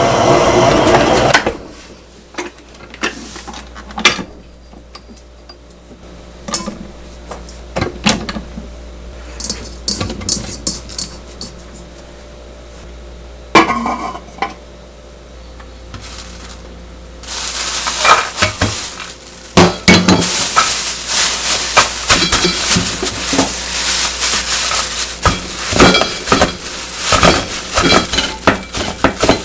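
Kitchen utensils clinking and knocking against pots and dishes. A loud steady noise stops about a second and a half in, and from about halfway through food sizzles in a hot pan while it is stirred.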